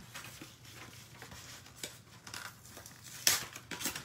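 Quiet rustling and handling of paper scraps, with one sharper, louder crinkle about three seconds in.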